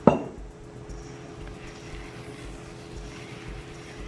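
A single sharp knock just after the start. After it, a steady low hum with a few fixed pitches and faint kitchen noise.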